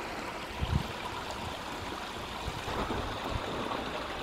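Water from a small mountain spring running steadily over rocks, a continuous trickling rush, with a brief low thump just under a second in.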